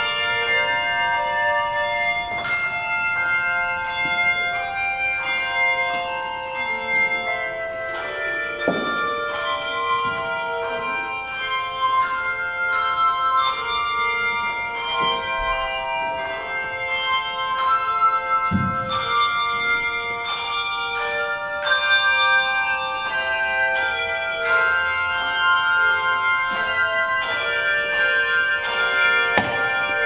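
Handbell choir ringing an arranged hymn: many brass handbells struck in turn and together, their overlapping tones ringing on as the melody and chords move.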